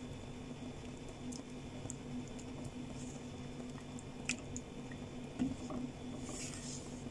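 Milk sauce simmering in a nonstick frying pan, bubbling and squelching softly as a silicone spatula stirs it, with a couple of light ticks of the spatula against the pan about four and five seconds in. A steady low hum runs underneath.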